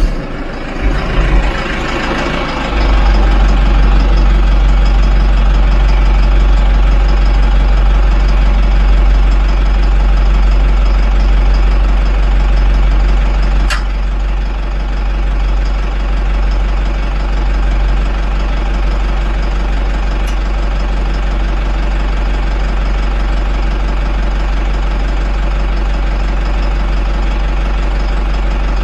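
Tractor engine idling with a steady low rumble, after a few handling knocks in the first couple of seconds; a couple of single clicks sound over it.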